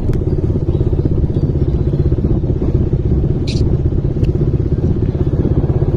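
Small motorcycle engine running steadily while riding, heard from the rider's seat, with rapid even exhaust pulses.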